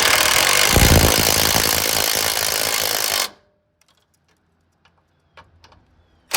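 Impact wrench hammering as it drives the cleaned ground-wire bolts tight. It runs for about three seconds and stops, followed by a few faint clicks, then starts again just at the end.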